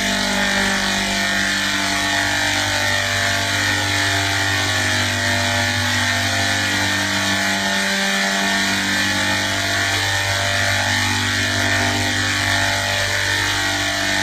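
A steady mechanical drone: a constant low hum with several fixed tones over a dense hiss, unchanging in level.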